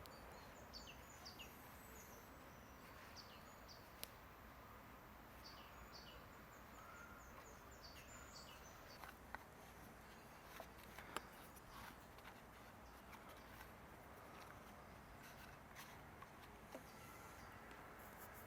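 Near silence: faint outdoor ambience with a small bird's short, high chirps in repeated little phrases through the first half, and a few isolated sharp clicks.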